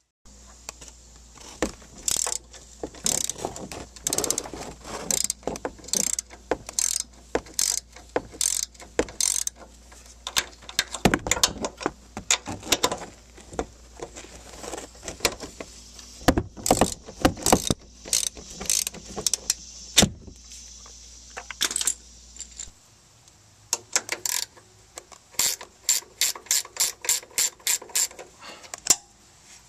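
Hand ratchet clicking in repeated strokes as it turns a nut on a front strut's upper mount, the clicks coming fastest, about three a second, near the end.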